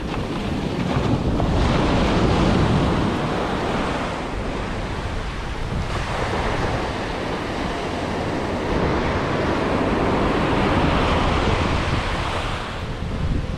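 Ocean surf breaking and washing up a sandy beach, swelling louder twice, with wind buffeting the microphone.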